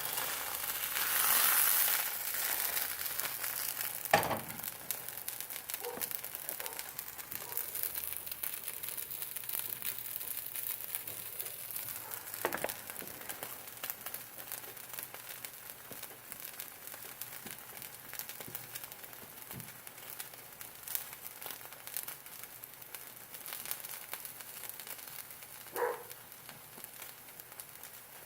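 Cheese-filled arepa frying in a dry pan, sizzling and crackling steadily as the cheese gives off its fat. A sharp click about four seconds in.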